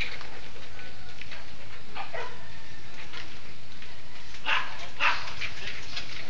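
Dogs barking over a steady hiss, with two louder barks about four and a half and five seconds in.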